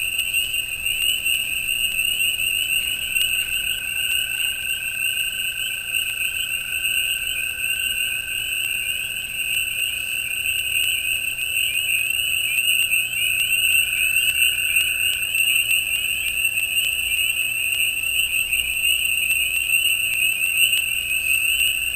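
Dense chorus of spring peepers: many shrill, rising peeps overlapping into a continuous sound, over a steady high-pitched insect trill.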